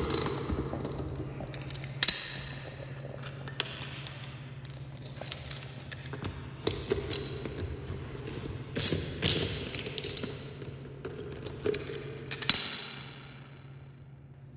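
A ratchet wrench clicking in short spells, with sharp metallic clinks of tools and bolts, as the bolts on a light aircraft's tailwheel hub are loosened. A low steady hum runs underneath, and the clicking stops about a second before the end.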